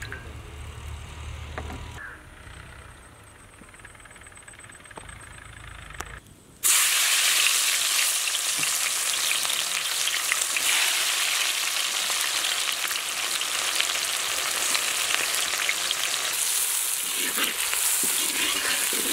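A quiet low hum for the first six and a half seconds, then sliced red onions frying in hot oil in a wok: a loud, steady sizzle that starts abruptly and carries on. A spatula turns them near the end.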